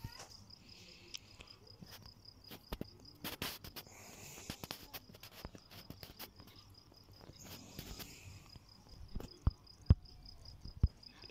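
Faint, steady high-pitched pulsing trill, insect-like, runs throughout, with scattered sharp clicks and taps; the loudest clicks come near the end.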